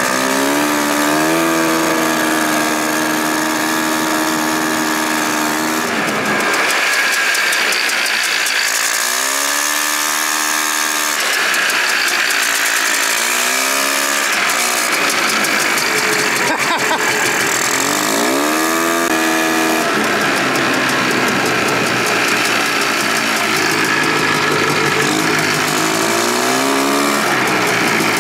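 Polaris Trail Boss 250's two-stroke single-cylinder engine running while the ATV is ridden. It holds a steady pitch for the first several seconds, then revs up and falls back several times as the throttle is worked.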